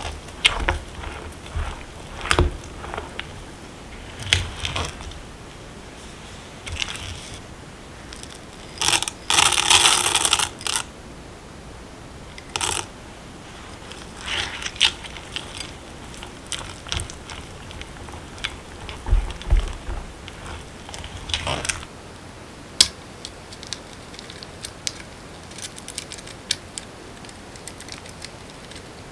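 Spatula stirring and folding thick chocolate oatmeal batter in a glass mixing bowl: irregular scraping, with sharp taps of the spatula against the glass and a louder rustling stretch about nine seconds in. Near the end the batter is dropped into a parchment-lined loaf pan.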